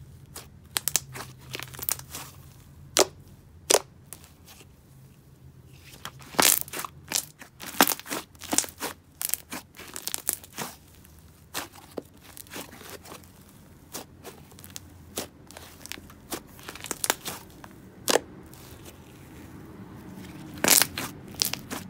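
Red Icee slime squeezed, pressed and stretched by hand, giving off sizzly, irregular crackles and pops, with a louder cluster of pops near the end.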